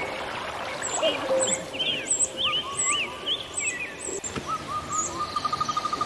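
Several birds calling together: high chirps and whistles throughout, a few low hooting notes early on, and from about four seconds in a steady rapid trill of repeated notes.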